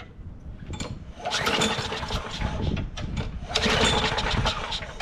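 Craftsman 6.5 HP push mower's small engine being pull-started twice after carburetor work, each pull making it fire and sputter for a second or two before it dies away again.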